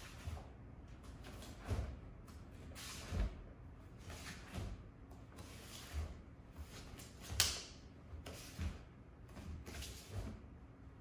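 Bare feet stepping and planting on martial-arts floor mats, with the uniform swishing at each block of a kenpo kata: a string of short, irregular thuds about once a second, the sharpest a little past the middle.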